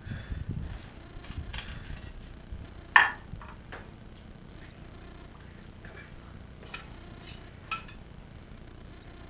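Kitchen utensils knocking against dishes and a small metal saucepan: a few separate clacks, the sharpest about three seconds in, then lighter taps later as a spoon scoops sauce from the pan.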